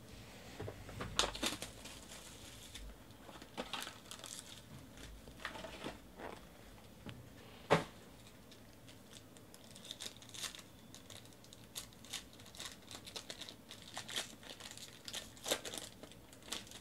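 Foil wrapper of a 2018 Topps Tier One baseball card pack crinkling and being torn open by hand, with scattered crackles and rustles. A single sharp click stands out a little under eight seconds in.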